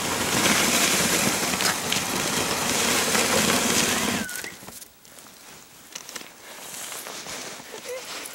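Dog sled runners hissing steadily over snow as the husky team pulls, cutting off suddenly about four seconds in as the sled stops; after that it is much quieter, with only small scattered sounds.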